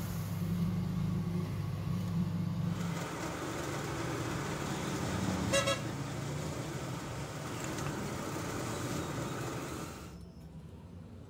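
Metal lathe running with a steady hum. About three seconds in, the sound changes to a drill press boring through a steel tube, with a short horn-like toot about halfway through. It drops to quiet near the end.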